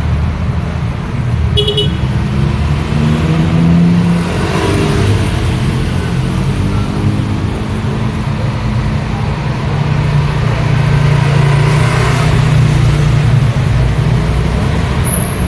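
Steady road traffic: vehicle engines running and passing with tyre noise, and a short horn toot about a second and a half in.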